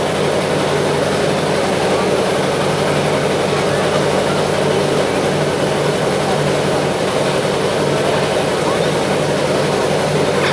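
Steady, unchanging engine drone, with faint crowd chatter underneath.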